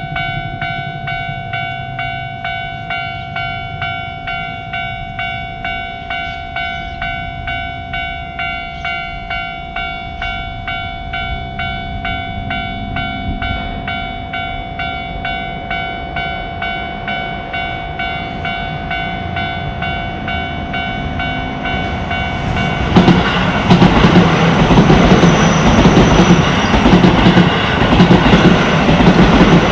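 Japanese level-crossing warning bell ringing in a steady, even rhythm. About three-quarters of the way through, a Keio Line train arrives and passes loudly over the crossing, its wheels clacking on the rail joints.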